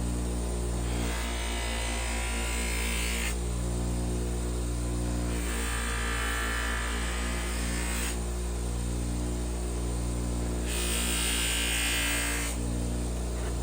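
Steady electrical hum, with three hissing bursts of about two seconds each, near the start, in the middle and near the end.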